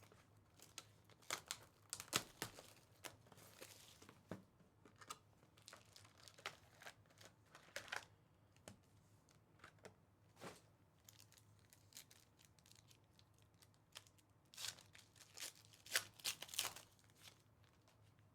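Sealed trading-card packaging being torn open, with the wrapper crinkling in short, irregular rustles, faint and close by. Two busier clusters come about a second in and again near the end.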